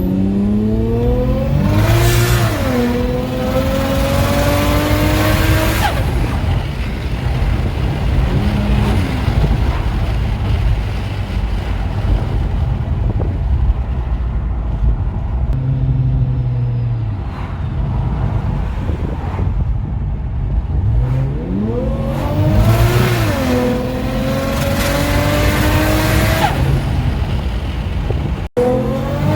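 Nissan Stagea RS4's straight-six engine and exhaust under hard acceleration, twice. Each time the pitch climbs steeply, dips at an upshift, then climbs on for a few more seconds before falling back to a low rumble in between.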